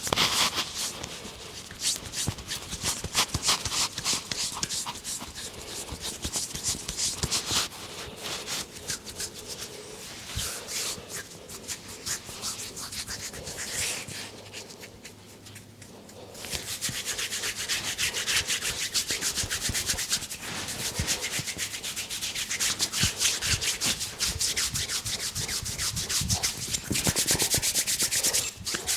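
Massage hands rubbing briskly over hair and skin, a fast, dense scratchy friction. It eases off for a few seconds past the middle, then comes back stronger.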